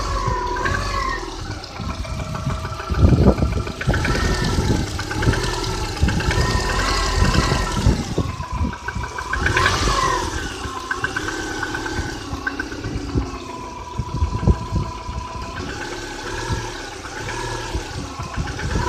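Subaru Outback's EJ251 2.5-litre flat-four engine running and being revved up and down, with sharp knocks through it. The knock appeared 5,000 km after a major rebuild and, according to the owner, eases a little as the engine warms.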